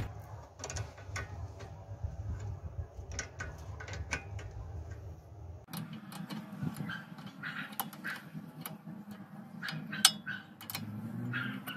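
Irregular light metallic clicks of a spanner working the bolt on a car's front brake caliper, undoing it to take the caliper off.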